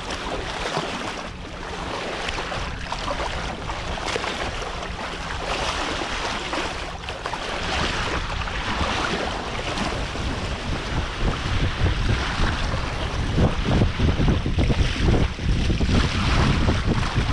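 Water rushing and splashing along a sailboat's hull as the bow wave breaks under sail, with wind buffeting the microphone, gusting harder and louder in the second half.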